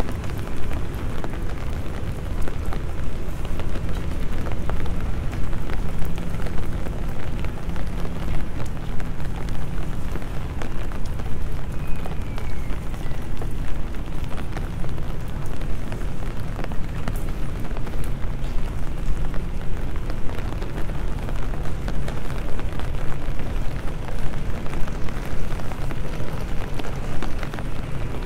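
Rain ambience on a wet paved pedestrian street: a steady, heavy low rumble with a dense fine crackle of raindrops.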